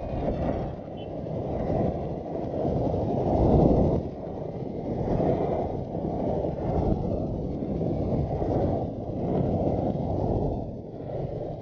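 Riding noise on a Royal Enfield Continental GT motorcycle at highway speed: wind buffeting the helmet-mounted camera's microphone, rising and falling, over the rush of the engine and tyres.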